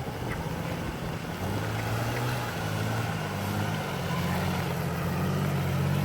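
Off-road 4x4's engine running, getting louder near the end as it is given more throttle.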